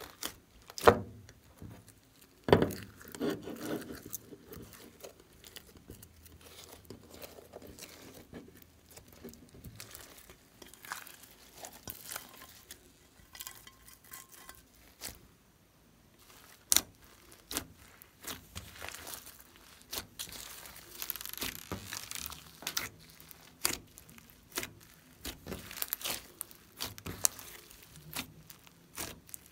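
Hands squeezing and stretching glossy slime mixed with small foam beads, giving sticky squelches, pops and crackles. A few sharp knocks come in the first few seconds.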